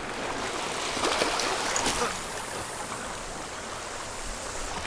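Small waves washing and trickling among rounded lava rocks at the shoreline, a steady wash that swells a little about a second in.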